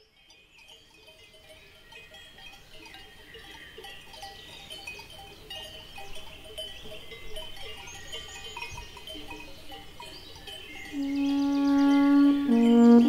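Many cowbells clanking irregularly, fading in from quiet. About eleven seconds in, music of loud, long-held brass horn notes comes in over them.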